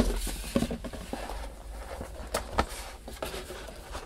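Small cardboard box being opened by hand: a sharp knock at the very start, then light taps and soft rustling as the lid and flaps are lifted and folded back.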